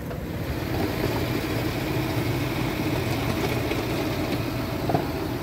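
Pickup truck engine idling steadily, close by.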